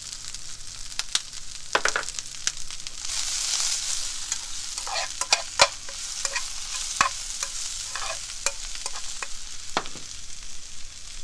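Napa cabbage, green onion and spinach sizzling in a frying pan while a spatula stirs them, with many sharp scrapes and knocks of the spatula against the pan. The sizzle swells louder for a stretch a few seconds in.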